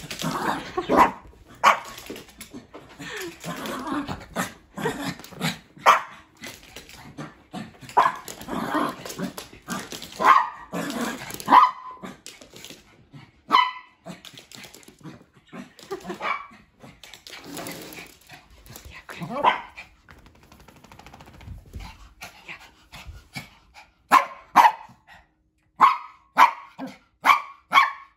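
Two small dogs, a Maltipoo and a Pomeranian, barking excitedly in play: many short, sharp barks in quick runs, with a quieter spell past the middle and a fast run of barks near the end.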